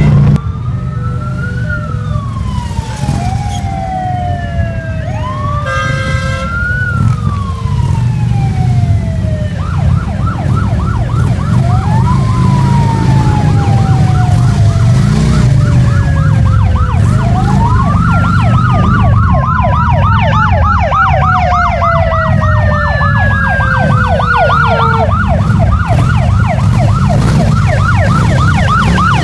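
Several sirens sounding at once: slow rising-and-falling wails, joined about a third of the way through by a fast yelp that runs on with the wails. Beneath them, the low steady running of Harley-Davidson touring motorcycle engines.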